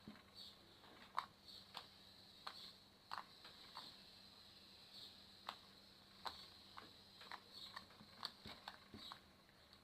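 Faint, irregular sticky clicks and soft squelches from homemade slime being kneaded and stretched by hand.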